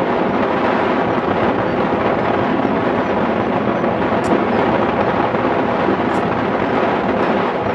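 Steady rush of airflow over the microphone of a hang glider in flight, an even roaring wind noise with no engine in it.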